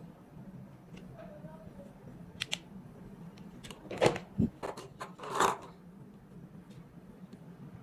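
Handling of string-light packaging: a few sharp clicks and knocks, the loudest about four seconds in, then a short rustle, over a steady low hum.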